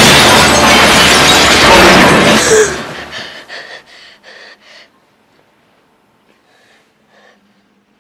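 A train crash, loud and shattering, that cuts off sharply about two and a half seconds in and trails away in a few fading bursts. After that a boy gasps and breathes quickly twice.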